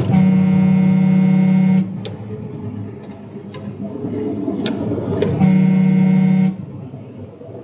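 Semi truck horn sounding two long, steady blasts: the first about a second and a half, the second about a second, four seconds later. They warn a car cutting in close in front. Engine and road noise and a few sharp clicks sound between the blasts.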